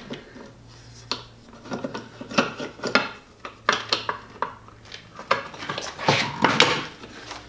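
Plastic fuel door cover clicking and knocking against a Camaro's fuel door as it is worked on by hand and snapped into place: a scattered series of sharp clicks, the loudest about six seconds in.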